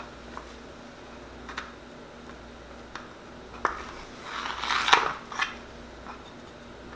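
A knife cutting through a baked pancake slab and scraping and clicking against the bottom of a metal baking pan: a few light clicks, then a longer scrape about two-thirds of the way through, the loudest.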